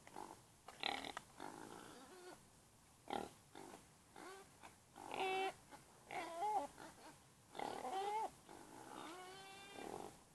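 Domestic pigs giving a string of about six short, high-pitched squeals and whines, some wavering in pitch, with a few short breathy snorts between them.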